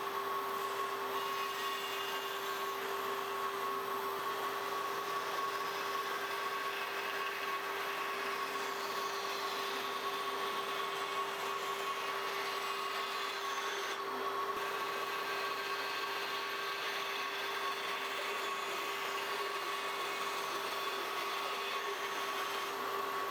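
A woodworking power tool running steadily: an even hum with a constant whine and no changes in level.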